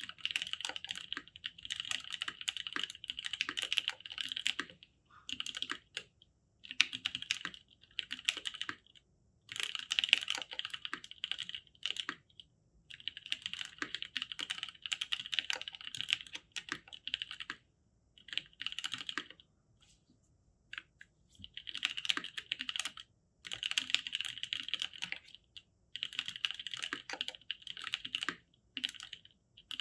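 Typing on a custom mechanical keyboard with lubed NovelKeys Cream linear switches and GMK Signal keycaps: rapid runs of keystrokes in bursts of a second or few, separated by short pauses.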